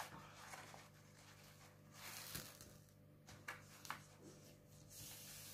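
Near silence: quiet room tone with a faint steady hum and a few soft rustles and taps from a diamond painting canvas being handled, around the middle.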